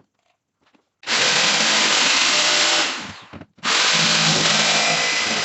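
Power tool running loud in two bursts of about two seconds each, starting about a second in, with a brief stop between them.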